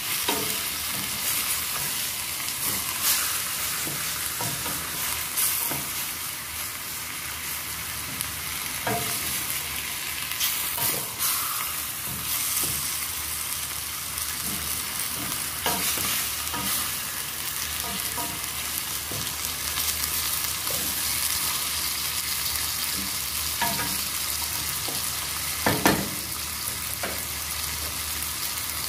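Chicken pieces and sliced red onion sautéing in a stainless steel pot with a steady sizzle, stirred with a wooden spoon that scrapes and knocks against the pot now and then. A sharper knock comes near the end.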